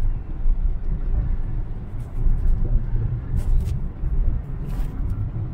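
Low, steady rumble of a car's engine and tyres heard from inside the moving vehicle, with a few faint clicks midway.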